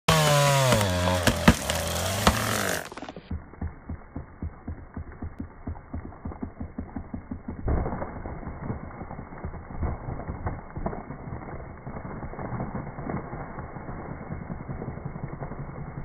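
Chainsaw running and revving as it cuts into a hollow tree trunk. About three seconds in, the sound turns to slowed-down slow-motion playback: a deep, muffled rumble of separate engine pulses knocking several times a second.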